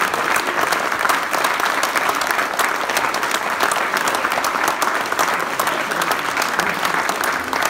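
A roomful of people applauding: dense, continuous hand-clapping that holds steady throughout.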